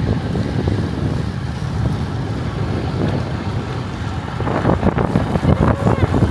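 Wind buffeting the microphone: a steady low rushing noise that grows more uneven about four and a half seconds in.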